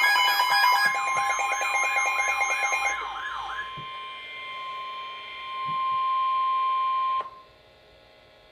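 Emergency Alert System warning alarm: a long steady tone that cuts off abruptly about seven seconds in. For roughly the first three seconds a warbling siren-like alarm and steady beeps overlap it.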